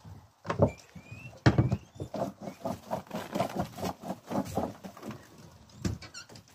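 Chopped vegetables and greens tipped and shaken from a plastic tub, pattering and rustling onto a mat in a dense run of small knocks. A few short high guinea pig squeaks come about a second in and again near the end.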